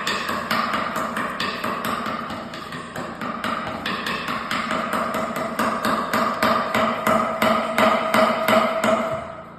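Rapid, regular hammer strikes, about four a second, over a steady hum; the sound cuts off abruptly at the end.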